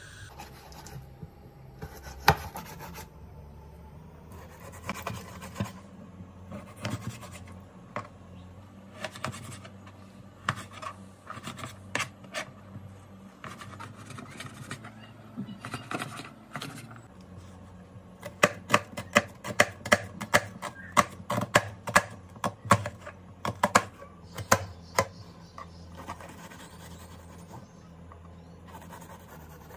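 Kitchen knife cutting raw meat on a plastic cutting board: scraping and slicing with scattered knocks, then a quick run of sharp blade strikes on the board, about three a second, a little past the middle. Near the end the knife cuts into an onion, more quietly.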